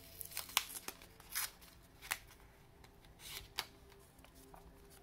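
Folded paper crinkling and rustling in a handful of short bursts as it is unfolded by hand, over faint background music.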